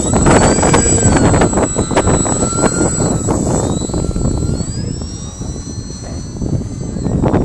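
Visionaire 3D radio-controlled aerobatic plane's motor and propeller whining overhead, the pitch rising and falling as the throttle changes, under heavy wind rumble on the microphone.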